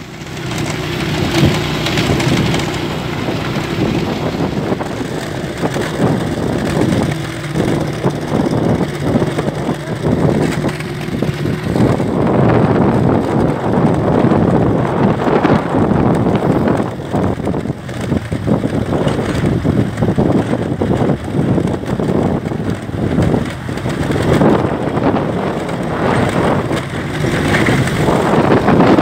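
Riding along a rough dirt road in a moving vehicle: a steady engine hum under wind buffeting the microphone, turning into a louder, rougher rumble about twelve seconds in.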